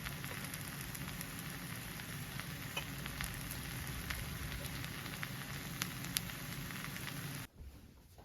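Bibimbap sizzling on a hot plate: a steady frying hiss with scattered crackling pops. It cuts off suddenly near the end.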